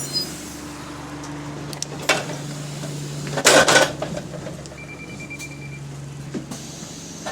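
Bus engine idling with a steady low hum, heard from inside the bus. A short hiss comes about two seconds in, and a louder hiss of air lasting about half a second comes about three and a half seconds in. A brief thin beep follows about five seconds in.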